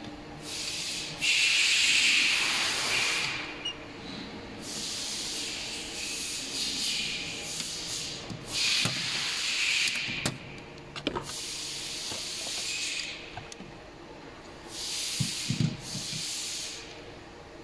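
Repeated bursts of hissing, each from a moment to about three seconds long, with a few sharp clicks about ten seconds in and low knocks near the end.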